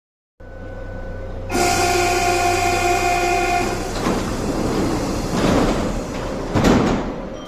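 Mexico City Metro train's door-closing warning tone: a steady, multi-note buzzing tone lasting about two seconds, starting about a second and a half in over the hum of the standing train. Train noise follows, with a louder clunk near the end.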